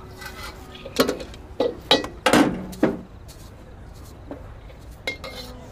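Knocks and clatter of a street-food vendor handling her cooking gear, about five sharp knocks in the first three seconds, then only a faint steady background.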